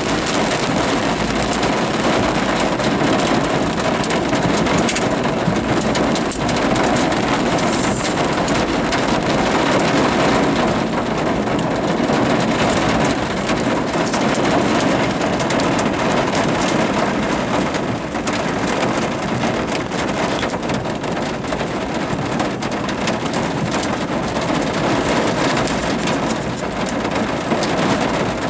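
Heavy rain pelting the roof and windshield of a vehicle, heard from inside the cabin as a loud, steady patter of countless fine hits.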